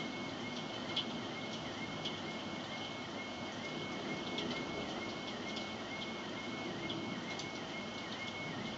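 Steady night-time city background noise, with a faint high tone that dips about twice a second and a few scattered faint ticks.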